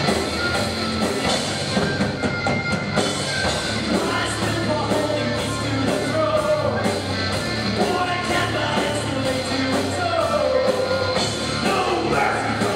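Live rock band playing at full volume: electric guitars and a drum kit, with a singer's voice over them.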